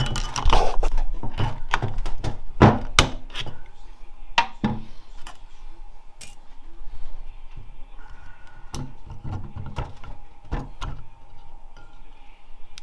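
Metal clanks and knocks of automatic-transmission parts and hand tools being worked loose and handled during a teardown, coming thick and fast for the first few seconds, then as scattered single clicks.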